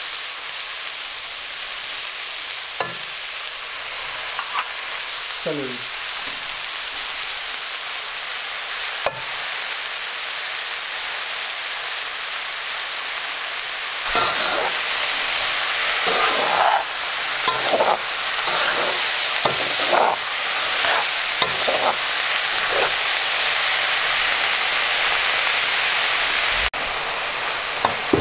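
Chopped onion, carrot, garlic and celery frying in olive oil in a nonstick pot, a steady sizzle that grows louder about halfway through. A utensil knocks and scrapes against the pot now and then in the second half.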